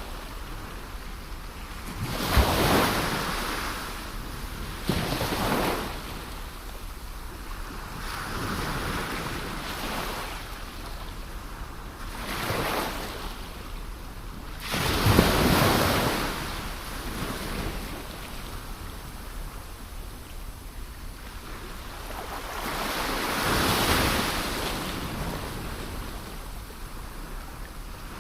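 Ocean waves breaking on the shore in irregular surges every few seconds over a steady wash of surf. The biggest break about two and a half seconds in and another around fifteen seconds, with a slower swell near the end.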